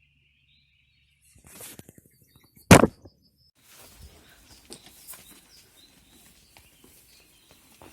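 Handling noises: a rustle, then one sharp knock a little under three seconds in, followed by scattered light clicks and rustling.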